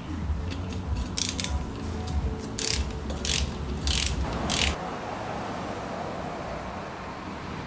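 Ratchet head of a click-type torque wrench clicking in about six short bursts as the socket runs down a beadlock ring bolt, then going quieter near the middle as the bolt is drawn up on a first light torque pass.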